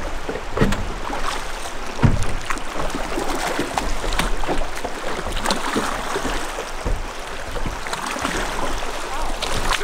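Drift boat being rowed through a riffle: water rushing and splashing around the hull, with scattered knocks from the oars, the loudest about two seconds in.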